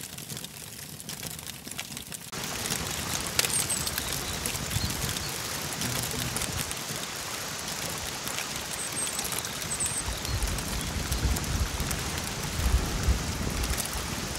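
Wood campfire crackling and popping, with dense clicks over a steady hiss that turns louder about two seconds in. A low rumble joins in the last few seconds.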